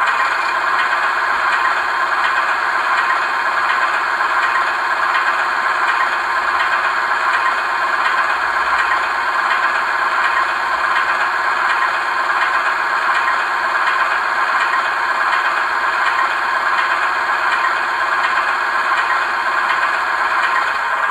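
Howes DCC sound decoder in a Bachmann Class 24 model locomotive playing a Class 24 diesel engine idling through its small speaker, steady and unchanging, with little deep bass.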